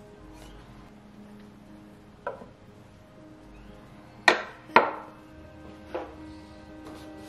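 Objects being set down on a small side table as decor is arranged: four sharp knocks, the loudest two about half a second apart near the middle, over soft background music.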